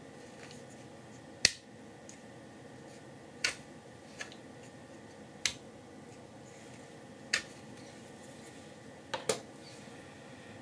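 Sharp plastic clicks about every two seconds, the last a quick double click: a 3D-printed quick-release trainer snapping in and out of its printed receptacle as it is passed through to clear printing imperfections.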